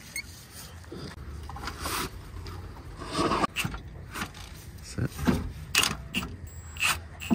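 Irregular metallic clunks, rattles and scraping as a gearbox is worked free and handled under a vehicle, the knocks coming thicker in the second half, over a low steady hum.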